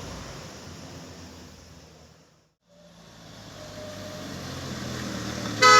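Road traffic noise fades to a brief silence about halfway through, then an approaching bus's engine grows louder. Just before the end a loud bus horn starts blasting, several notes sounding together.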